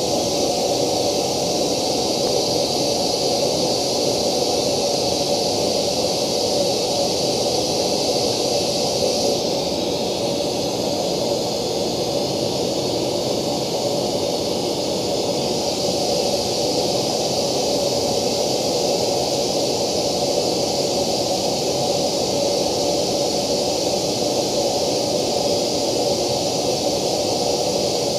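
Steady hiss-like test noise played through a loudspeaker with a JBL ring-radiator tweeter. About a third of the way in, the highest treble drops and stays lower as a clear acrylic slant-plate acoustic lens is set in front of the tweeter.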